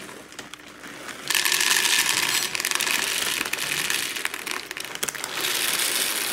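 Nesquik chocolate cereal balls pouring from a crinkling plastic bag and rattling into a plastic container. There is a long pour starting about a second in, then a shorter one near the end.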